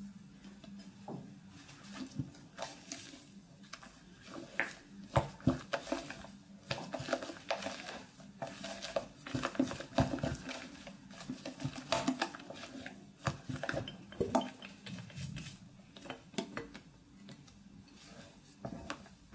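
A silicone spatula folding thick egg-yolk custard into whipped mascarpone in a glass bowl. Soft wet stirring sounds come with many irregular taps and scrapes of the spatula against the glass.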